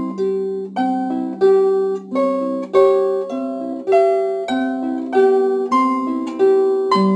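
Solo harp playing: notes plucked in a lively pattern, about two a second, each ringing on and fading, over a low bass note that keeps sounding.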